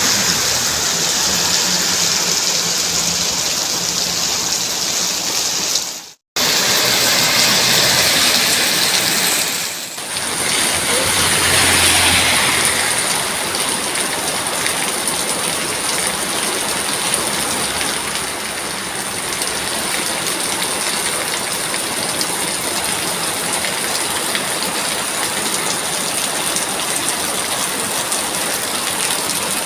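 Steady, heavy rain falling as an even hiss. It cuts out for a split second about six seconds in, and its sound changes slightly around ten seconds in, where one rain recording gives way to another.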